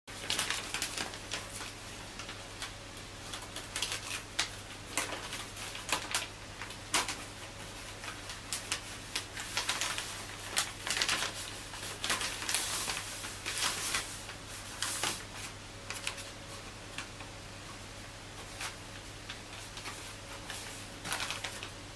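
Thin plastic vacuum-sealer bag crinkling and crackling in irregular bursts as it is handled and filled by hand, over a steady low hum.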